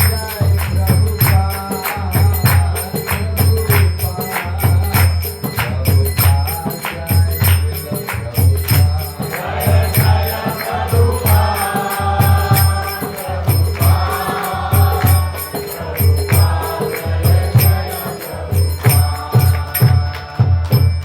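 Devotional group singing (kirtan) with a steady hand-drum beat and ringing small hand cymbals; the voices come in most strongly in the middle and again near the end.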